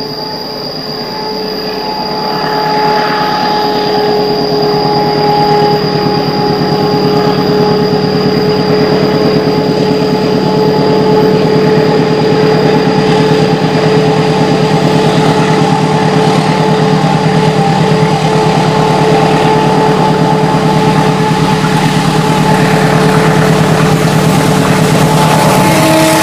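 A KAI CC203 diesel-electric locomotive working hard up a grade as it hauls a passenger train past. Its engine runs loud with a steady high whine over a low rumble, growing louder over the first few seconds, then holding.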